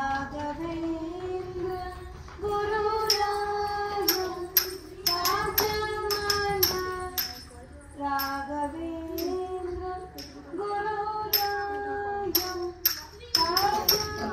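Bharatanatyam dance music: a high voice sings a slow melody with long held notes that glide from pitch to pitch, over sharp, ringing metallic strikes that keep the beat.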